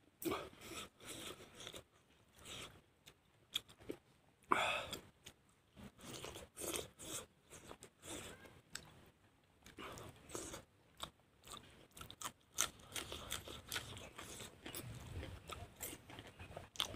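A person chewing and crunching mouthfuls of rice and fried vegetables, close to the microphone, in irregular bites and chews.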